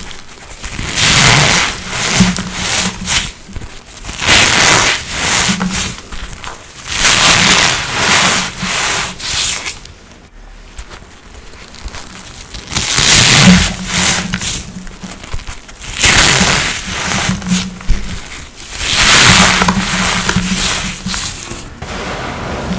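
Reformed blocks of coloured holi powder being crushed and rubbed into dust, in about eight noisy crunching strokes of one to two seconds each.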